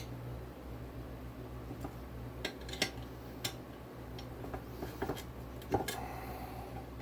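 Scattered sharp metallic clicks and clinks of hand tools as engine crankcase bolts are tightened, about six separate clicks over a steady low hum.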